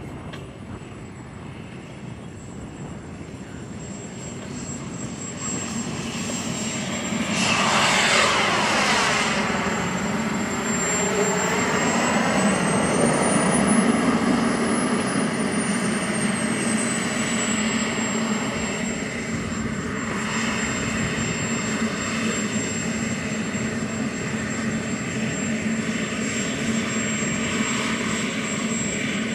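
Radio-controlled model jet flying: a steady high jet whine over engine rush, swelling into a loud close pass about eight seconds in. A little later the whine rises, then falls back in pitch.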